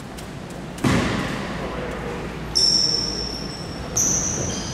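Basketball game noise in a gym: a ball strikes the hardwood floor with one loud thud about a second in that echoes around the hall, followed by two sharp high squeaks from the court.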